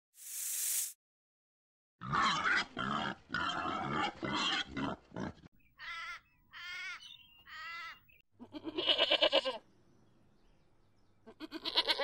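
Goat bleating: a loud, long bleat about nine seconds in and a shorter one near the end. Before it come a short hiss at the very start and a quick run of rough, noisy animal calls.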